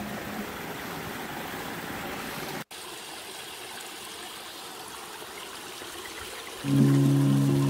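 A small forest stream splashing down a little rock waterfall into a pool, a steady rush of water. It cuts off abruptly about a third of the way in and resumes slightly quieter. Background music with sustained low notes comes in loudly near the end.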